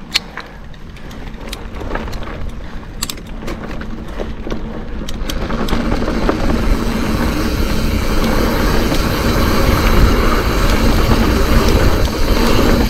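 Mountain bike rolling over a dry dirt trail, picked up by a chest-mounted action camera: a few sharp knocks and clicks from the bike early on, then tyre and wind noise building steadily louder from about halfway as the bike gathers speed.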